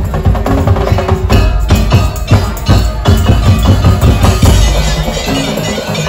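Madurese daul (tong-tong) percussion ensemble playing: bamboo slit drums and drums in a fast, dense beat, with short pitched notes sounding over it.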